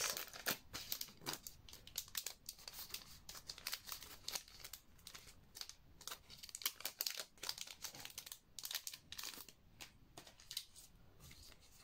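Plastic card packaging crinkling and tearing as sealed photocard bags are opened by hand: a faint run of irregular rustles and crackles.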